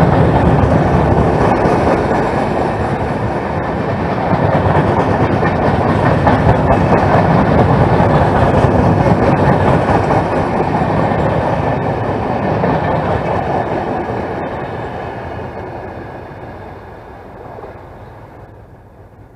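Passenger coaches of an express train passing close by at speed: steady rumble of wheels on rail with a few sharp clacks. The noise fades away over the last several seconds as the end of the train passes and moves off.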